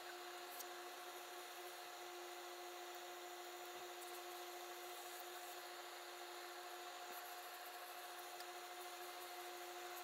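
Faint steady electrical hum, a low tone with a second one an octave above, over a soft hiss, with a few faint handling ticks.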